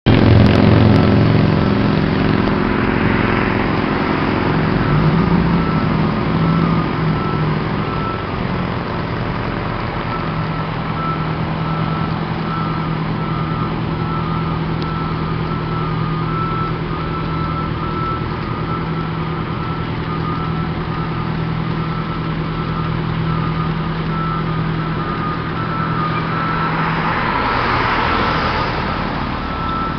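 Diesel fire engine running as it backs into the station bay, its reversing beeper sounding a steady repeated beep. A passing car swishes by near the end.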